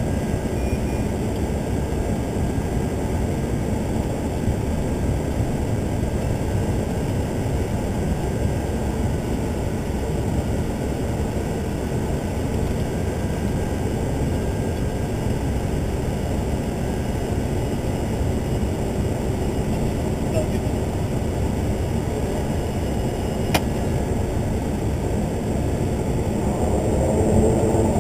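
Steady cabin noise of a Socata TBM 850 on its landing: the drone of its Pratt & Whitney PT6A turboprop and the rush of air, heard from inside the cockpit. There is a single click near the end, and the drone grows slightly louder just before the end.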